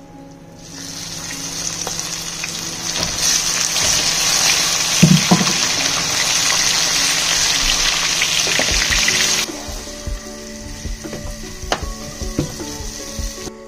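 Food sizzling in hot oil in a pan. The steady sizzle starts about a second in, grows louder around three seconds and cuts off suddenly after about nine seconds.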